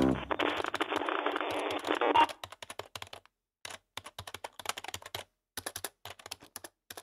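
Typing on a computer keyboard: irregular runs of quick key clicks broken by short pauses. For the first two seconds a louder muffled hiss runs underneath and cuts off abruptly.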